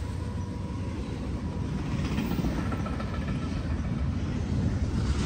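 BNSF intermodal freight train's double-stack container well cars rolling past, a steady low rumble of wheels on rail.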